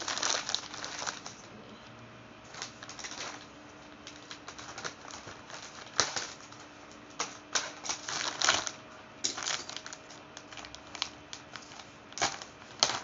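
Plastic courier mailer bag crinkling and crackling as it is handled and torn open, in irregular sharp crackles and clicks with short quieter gaps.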